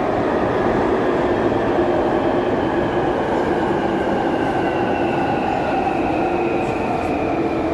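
Jubilee line 1996 stock tube train running, with a steady rumble and a whine that falls slowly in pitch.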